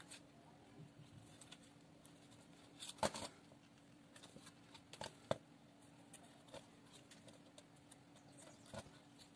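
Near silence with a few faint clicks and taps, about three seconds in and again about five seconds in, as a circuit board is handled and its solder side is marked with a felt-tip marker. A faint steady hum runs underneath.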